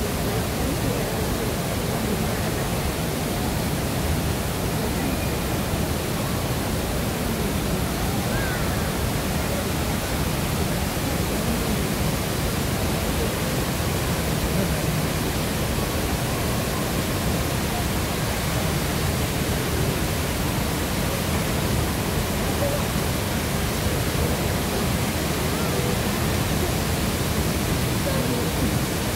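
Steady rushing of the HSBC Rain Vortex, a 40-metre indoor waterfall pouring from the roof into a basin, with faint voices of onlookers underneath.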